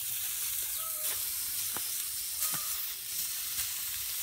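Meat and oil sizzling on the hot plate of an electric heat-welding machine used as a grill at about 300 degrees, with a steady hiss and a few sharp pops of spitting fat.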